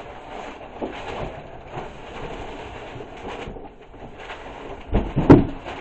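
Rustling and scraping of a cardboard box and its packaging being handled and opened, with scattered small knocks and a loud thump about five seconds in.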